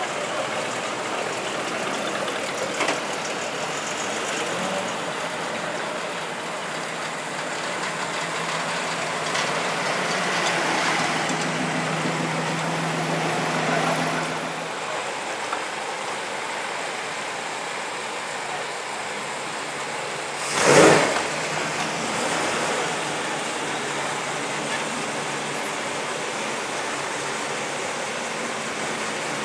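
Classic cars driving slowly past one after another, their engines running at low speed over street traffic noise. A car's engine hum swells and fades in the first half, and one brief loud noise comes about two-thirds of the way through.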